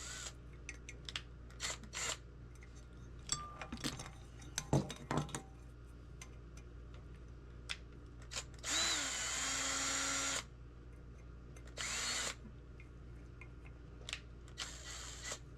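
Power drill running in short bursts, with a steady whine: one run of about two seconds near the middle, a shorter one about a second later and a quieter one near the end. Scattered clicks and knocks of metal parts being handled come between the runs.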